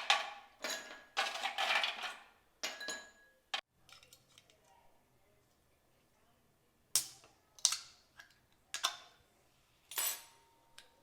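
Cutlery clinking against a dish in short, separate strikes with a brief ring after each: a quick cluster, a pause of a few seconds, then a strike about every second.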